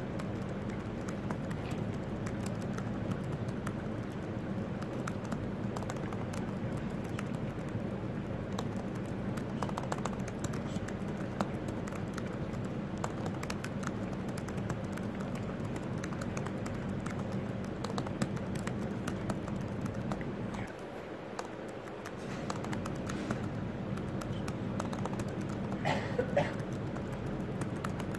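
Fast, irregular clicking of keys on a laptop keyboard as element names are typed out, over steady low room noise.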